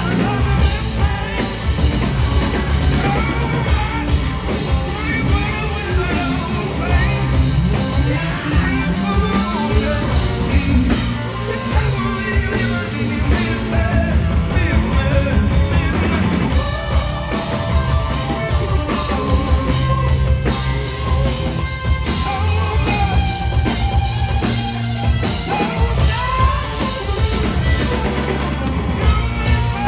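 Blues-rock band playing live at full volume: a lead singer over a pounding drum kit and the band.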